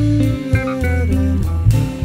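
Background music: a guitar-led instrumental track with bass and a steady beat.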